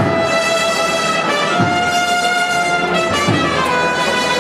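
Brass band playing a slow processional march: long held trumpet and trombone notes over low drum thuds about every second and a half.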